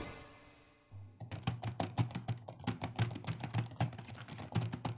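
Computer keyboard typing sound effect: rapid, irregular keystroke clicks, about five a second, starting about a second in as on-screen text is typed out.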